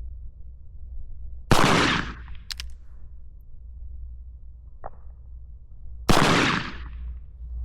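Two shots from a Schofield top-break single-action revolver, about four and a half seconds apart, each a sharp report with a short ringing tail. A faint click comes between the shots.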